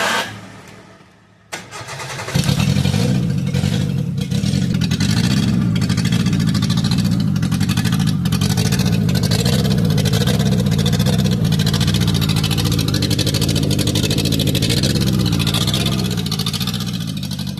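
A car engine starts about two seconds in and then runs steadily with a fast, even pulsing, the kind of exhaust puffing presented as a sign of an exhaust leak.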